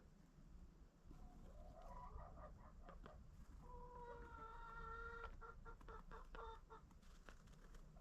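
Faint hens clucking: a few short notes, then a longer held call about four seconds in, followed by a run of short clucks, with scattered faint clicks.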